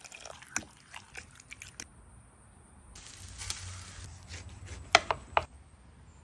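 Liquid poured into a glass bowl of chopped vegetables, with small splashes and clicks; then a hiss and two sharp metal clacks as tongs and a spatula lift a roast off grill grates.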